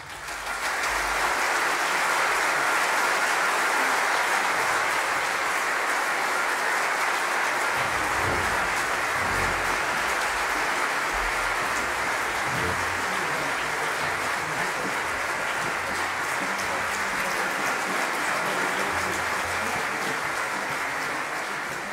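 Large concert audience applauding. The clapping breaks out at once and holds steady, fading away near the end.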